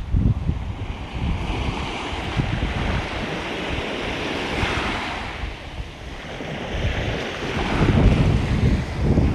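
Ocean surf washing on the shore, with wind buffeting the microphone in gusts; a wave washes up with a brighter hiss about halfway through.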